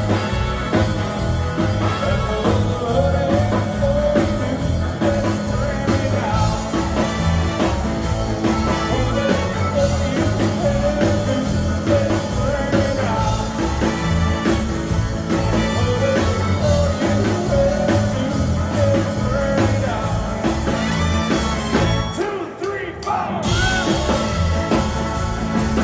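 Live rock band playing: electric guitars, drums and keyboard under a lead vocal with a steady beat. Near the end the band cuts out for about a second, then comes back in.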